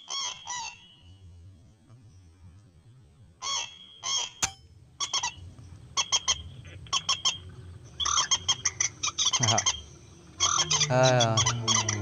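Common moorhens calling in short, repeated honking notes that come in clusters, with a louder warbling call near the end. A single sharp click comes about four and a half seconds in.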